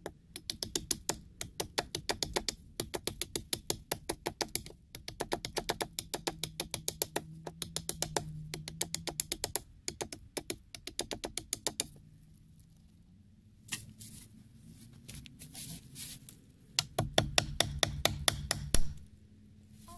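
A large curved knife striking a peeled log in quick light strokes, about six a second, shaving and chipping the wood. The strokes pause for a few seconds past the middle and start again near the end.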